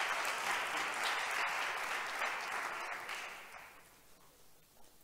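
Audience applauding, the clapping dying away about three and a half seconds in.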